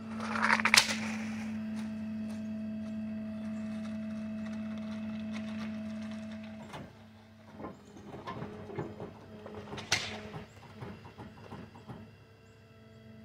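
Hydraulic pump motor on a shed-moving trailer whining steadily while the bed tilts, cutting off about two-thirds of the way through. A brief loud crunch comes near the start, and after the pump stops there are scattered creaks and clicks with one sharp click near the end.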